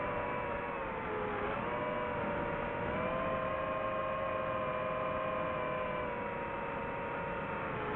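DJI FPV drone's motors and propellers whirring steadily, the pitch dipping and rising a little with throttle, with a dip about a second and a half in and a slight drop near the end.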